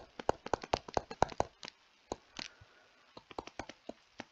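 Stylus tapping and clicking on a tablet screen during handwriting: a quick irregular run of sharp taps, a short pause a little after halfway, then more taps.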